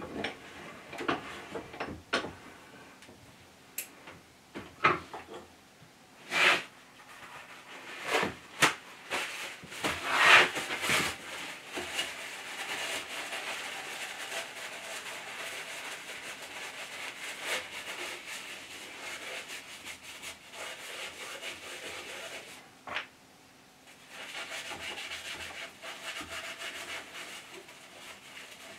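Tissue or cloth being rubbed round inside the bore of a cast iron lathe tailstock casting: a steady scrubbing, with a short pause near the end. Before it settles into the steady rubbing, there are scattered knocks and handling noises from the metal casting and cloth.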